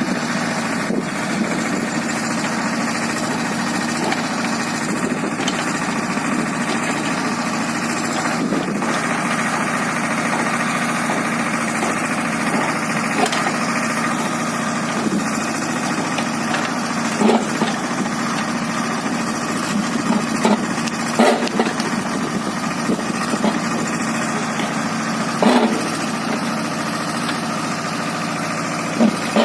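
Swaraj 724 XM tractor's diesel engine running steadily while it drives a mini backhoe. A few short clanks stand out in the second half.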